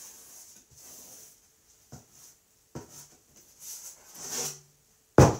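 Paintbrush strokes scrubbing paint onto a painting panel, a soft intermittent scratchy hiss with a few light knocks, then one loud thump about five seconds in as the panel is shifted against the table.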